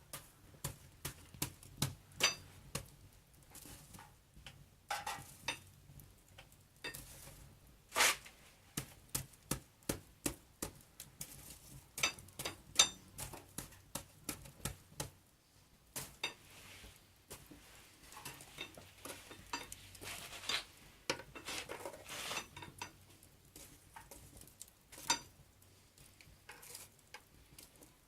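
Metal cooking gear at a fireplace grill, the skewers and iron crossbars, being handled: irregular sharp clinks and knocks, a few with a short metallic ring.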